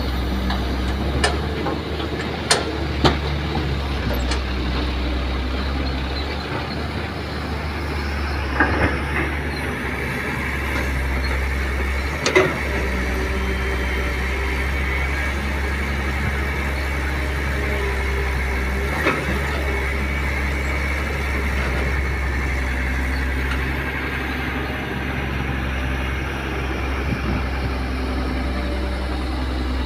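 Kobelco SK200 hydraulic excavator's diesel engine running steadily under working load while it digs and swings. A higher whine joins from about eight seconds in. Sharp knocks sound a few times, most in the first few seconds as a bucketful of soil and rock is dumped into the steel bed of a dump truck.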